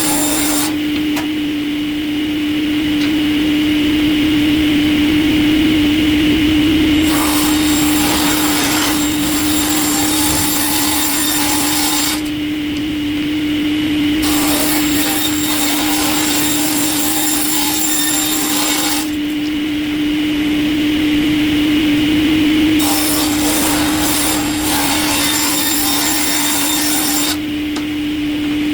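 Industrial wood-processing machine running with a steady hum. Stretches of loud, coarse wood-cutting noise start and stop every few seconds as wood passes through it.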